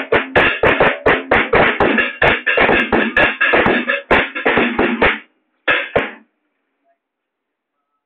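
Drum-kit music with a fast, steady beat of kick and snare hits, about four or five a second. It cuts off about five seconds in, followed by one short last burst.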